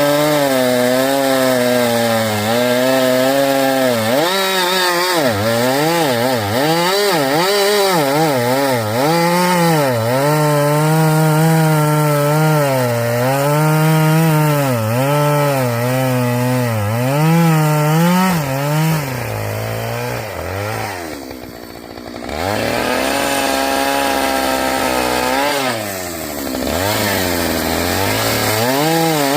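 Two-stroke chainsaw cutting through downed trees for firewood, its engine pitch rising and falling as the chain bites into the wood. About twenty seconds in it drops back toward idle, then revs up again into the cut, with a shorter dip a few seconds later.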